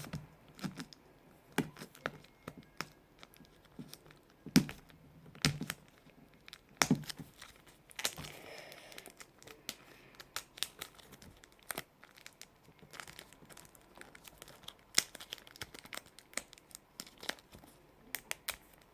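Plastic packaging crinkling and tearing, with scattered clicks and knocks, as a sealed tub of modelling clay is worked open by hand.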